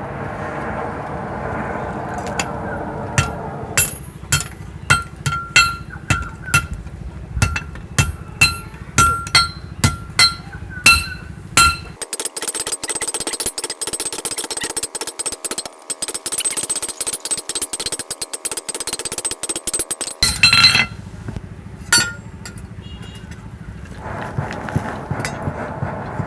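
Blacksmith's hand hammer striking steel on an anvil, a ringing clink with each blow, about two blows a second for several seconds. After that comes a fast, even metallic rattle for several seconds, then a loud burst and a few more strikes.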